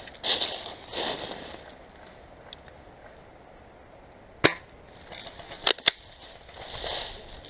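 Three sharp airsoft gun shots, one about four and a half seconds in and two in quick succession near six seconds. Brief rustling swishes near the start and again near the end.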